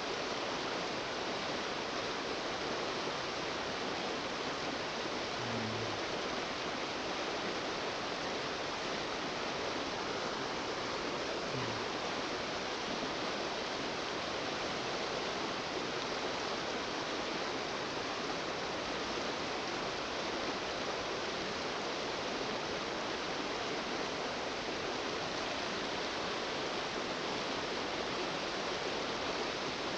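Strong river current rushing steadily: an even, unbroken wash of flowing water.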